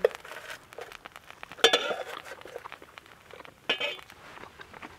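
A knife and fork clink and scrape against a metal pan while turning fried pastries. There are two louder ringing clinks, one about a second and a half in and one near four seconds.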